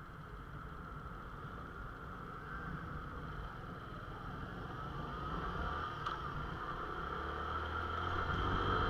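Motorcycle engine running, first at a standstill and then pulling away and picking up speed, growing steadily louder as it goes.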